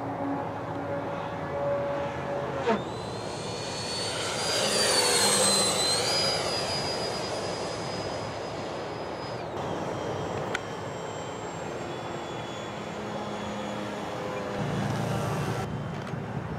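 High-pitched whine of an electric ducted fan jet: a Freewing T-33 Shooting Star RC model flying past. The whine comes in sharply about three seconds in, wavers and is loudest around five seconds, steps up higher, then drops off about halfway through, leaving a fainter whine over a rush of air.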